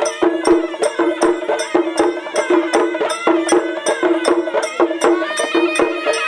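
South Indian folk festival drumming: several barrel drums beaten with sticks in a fast, even rhythm of about three strokes a second, with a sustained pitched melody over the beat.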